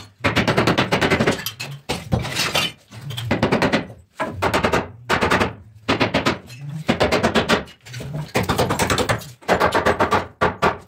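Hammer driving nails into a wooden door frame in quick runs of sharp blows, each run about a second long, with short pauses between.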